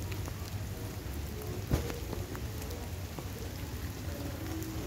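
Steady rain on wet ground, with boot footsteps on wet pavement; one sharper knock a little under two seconds in.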